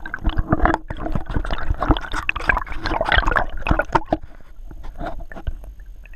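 Water sloshing and bubbling against a camera held just under the surface, full of quick knocks and pops that thin out over the last couple of seconds.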